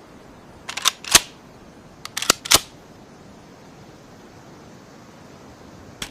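Bolt of a Ruger American bolt-action rifle being worked. It gives two quick clusters of sharp metallic clicks about a second apart, then a single faint click near the end.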